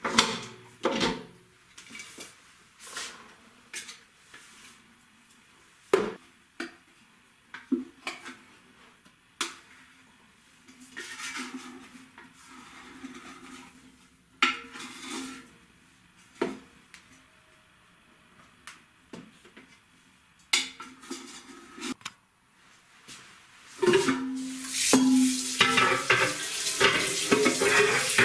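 Stainless steel bowl of a spiral dough mixer knocking and clanking as it is lifted off and the dough is tipped out, about a dozen separate knocks. Near the end a kitchen tap runs water into the bowl in the sink.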